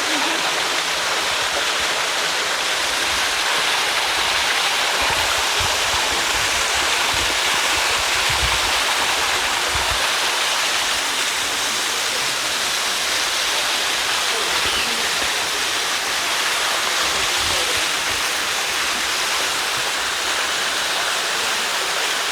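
Waterfall splashing into a rock pool: a steady, loud rush of falling water.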